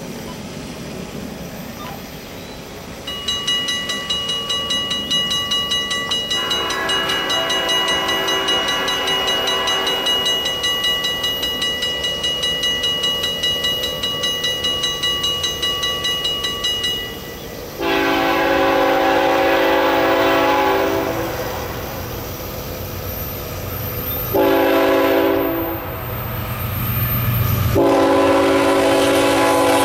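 A grade-crossing warning bell rings rapidly from about three seconds in until about seventeen seconds in. Over it, the horn of an approaching CSX ES44AH freight locomotive sounds faintly at first, then in loud chords: a long blast, a short one, and another long one near the end, with the train's rumble growing underneath.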